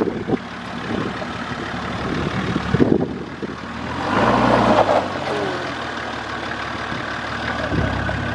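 Car engine running steadily, with a louder burst of noise about four seconds in.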